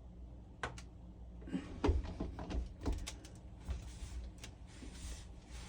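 Plastic water filter housing wrench being slid onto a whole-house filter housing: scattered clicks, knocks and short scrapes of hard plastic on plastic as it is worked into place.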